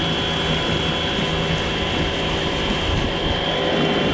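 Homemade brushless electric outboard motor running steadily under load, a high whine over the running noise, with strange sounds from its second-hand Carver lower-unit gearbox, which the owner takes for a worn-out gearbox that binds and overloads the motor.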